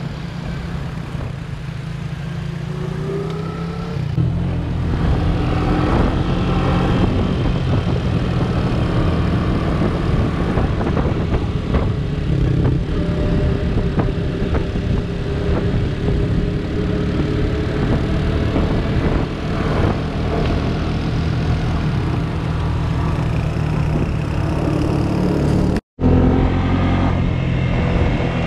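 Quad bike (ATV) engine running steadily while ridden over sand, with wind noise on the microphone. The sound cuts out for a moment near the end.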